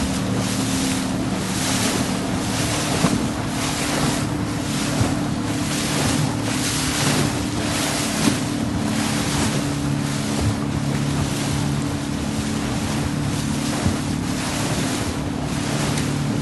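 Motorboat under way: its engine hums steadily beneath loud rushing from wind on the microphone and water splashing along the hull, swelling and fading in irregular gusts.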